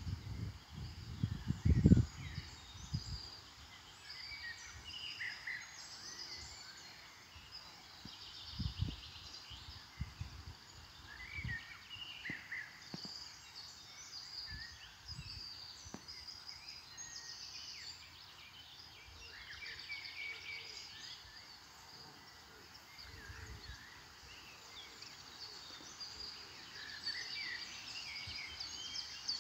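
Songbirds chirping and singing at several different pitches, with a few brief low rumbles of wind on the microphone.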